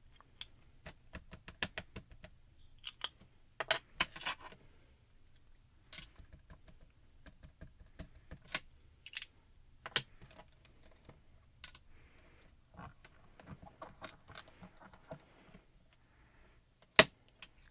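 Scattered light clicks and taps of small plastic ink cubes being handled and dabbed onto clear stamps in a MISTI stamp positioner, with a sharp knock near the end as the positioner's lid is handled.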